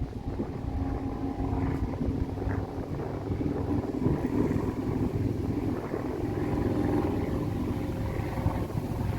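An engine running steadily with a low hum, mixed with wind noise on the microphone.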